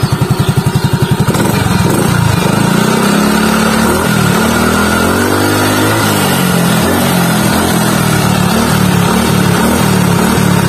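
Yamaha Soul GT 125 scooter's single-cylinder engine running through a shortened Thai-market Honda CBR muffler with its resonator removed. It idles with distinct pulses, then is revved from about a second and a half in, the pitch rising and falling several times while the rear wheel spins on the centre stand.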